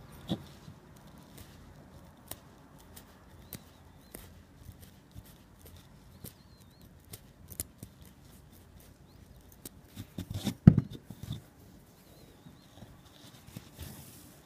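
Small clicks, ticks and rustles of hand repair work on a wool pile rug, a metal needle and tweezers working yarn through the weave, with a louder cluster of knocks and rustling a little past the middle.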